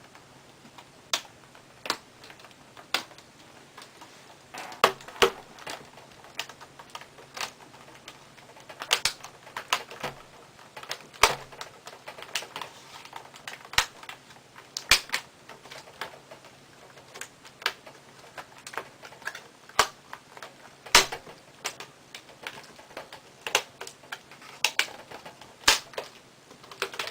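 Plastic laptop screen bezel being pried off with a small flathead screwdriver: irregular sharp clicks and snaps, some in quick clusters, as the bezel's clips pop loose from the lid.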